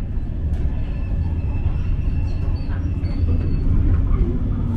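Bakerloo line 1972 Stock tube train running, heard from inside the carriage: a steady low rumble of wheels on the track, with a faint thin whine above it.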